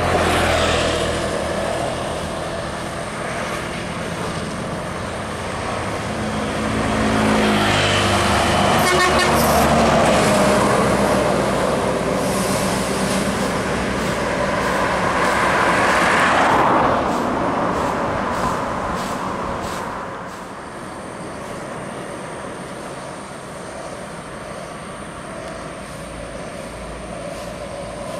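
Intercity coaches passing at speed, their diesel engines and tyres swelling loudly and fading as each goes by, three times. A horn sounds around the middle.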